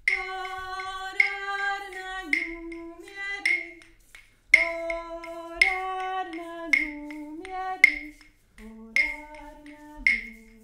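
A woman singing unaccompanied, a slow melody of long held notes in phrases that break off briefly twice and sink lower near the end. Sharp clicks strike about once a second throughout.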